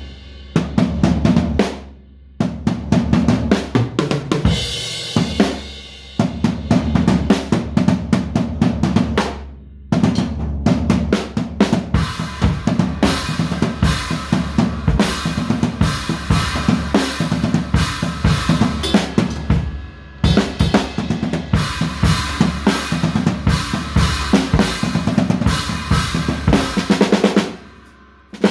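Drum kit played in fast, busy patterns of snare and bass drum hits, stopping briefly four times and starting again.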